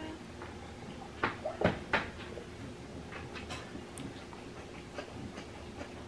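Light knocks and clicks of things being handled on a table, a few sharper ones bunched together between one and two seconds in, over a steady faint hum and room tone.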